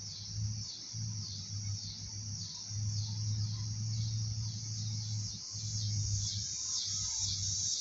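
Rhythmic high-pitched chirping from an animal, about two chirps a second, over a low steady hum.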